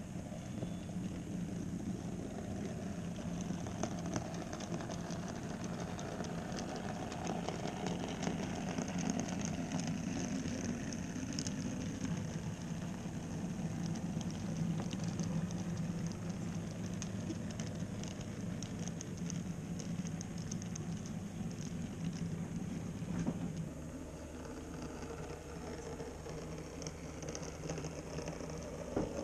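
N-scale model train running on the layout track: a steady motor hum with fine, rapid clicking of the wheels on the rails. After a sudden change about 23 seconds in, the hum is quieter.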